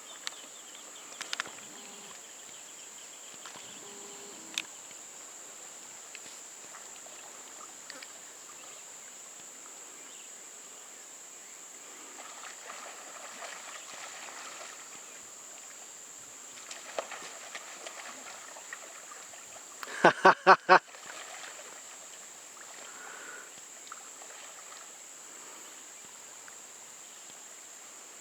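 Insects keep up a steady, high-pitched drone. There are occasional light knocks, and about twenty seconds in comes a short burst of about five loud, quick pulses.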